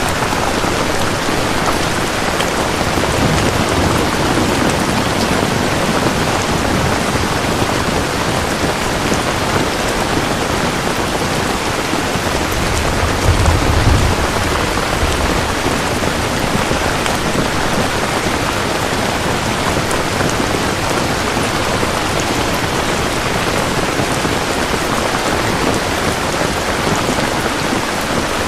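Steady, dense rainfall, an even hiss of drops falling on surfaces, with a brief low rumble about halfway through.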